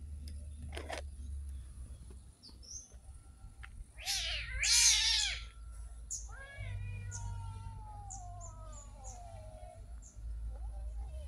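Cats meowing: two short, loud meows about four seconds in, then one long meow that falls in pitch.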